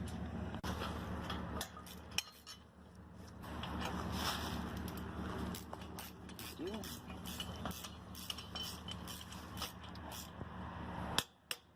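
Scattered metal clinks and knocks of steel treestand parts and bolts being handled during assembly, over a steady low hum.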